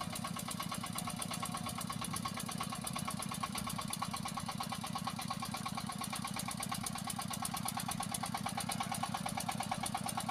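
Small tractor engine running steadily with a fast, even chugging rhythm of firing strokes.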